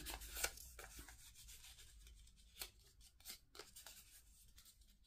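Faint rustling of a paper slip being creased and folded by hand, with a few soft crackles of the paper.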